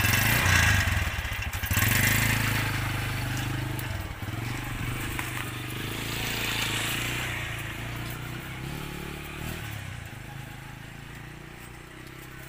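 Motorcycle engine starting and revving, then running on steadily and gradually fading.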